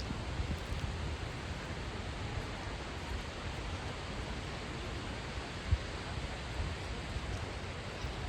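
Steady rushing outdoor noise with low rumbling underneath and one brief thump a little past halfway.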